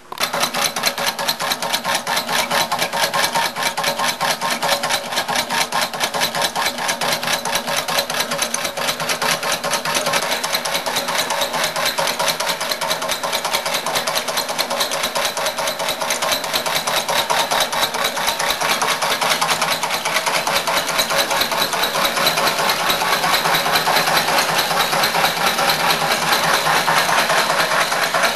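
A salvaged vacuum-cleaner motor belt-driving a homemade wort pump, together with the burner's air blower, switching on at once and running steadily with a fast, even flutter. It gets a little louder near the end.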